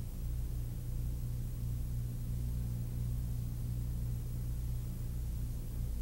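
A steady low hum with faint hiss and no distinct events.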